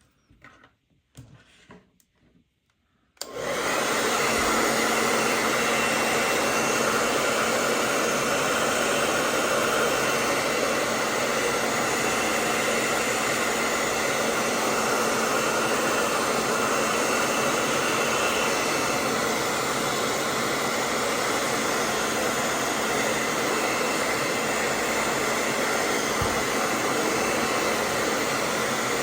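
Faint rustling, then a hair dryer switches on about three seconds in and runs steadily at one setting, a loud even blowing with a low motor hum.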